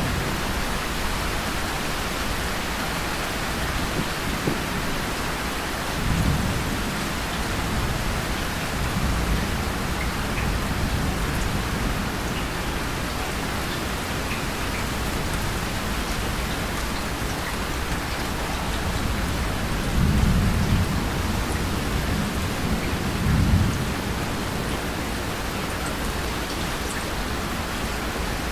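Steady rain, joined by low rolls of distant thunder that swell about six seconds in and again around twenty and twenty-three seconds in.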